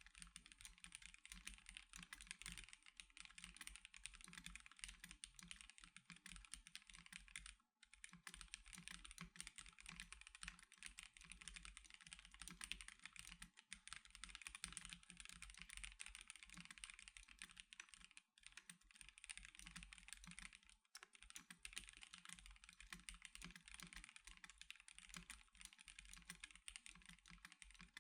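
Continuous typing on an Ikki Aurora R2 custom mechanical keyboard fitted with C³Equalz x TKC Banana Split linear switches and DSA-profile keycaps. It makes a steady stream of keystrokes with brief pauses about 8, 18 and 21 seconds in.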